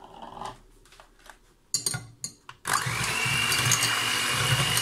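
A few knocks and clicks, then a little past halfway an electric hand mixer switches on and runs steadily, its beaters whisking egg whites in a glass bowl, with a high whine that rises as it comes up to speed and then holds.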